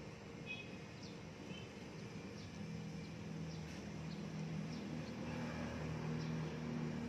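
Outdoor ambience: a low, steady motor-like hum that grows louder over the second half, with a few short, high chirps in the first couple of seconds.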